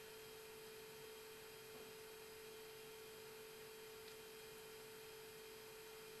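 Near silence: a faint steady tone at one pitch over low hiss.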